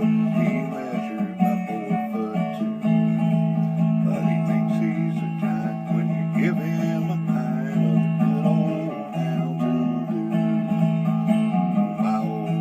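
Instrumental acoustic guitar music, strummed, with no singing.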